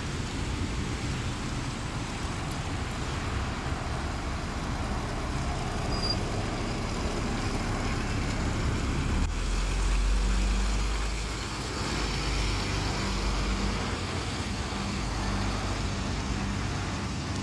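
Double-decker bus engine running as the bus pulls past, with a deep rumble that grows loud about nine seconds in as it passes close and then eases as it drives away. Tyre hiss on the wet road surface runs underneath.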